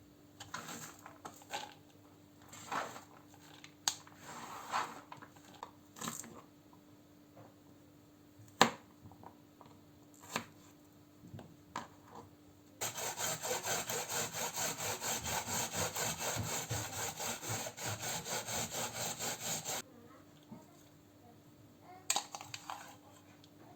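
Rhythmic rasping, scraping strokes, about three a second, for roughly seven seconds in the middle. Before it come scattered light clicks and knocks, one of them sharp.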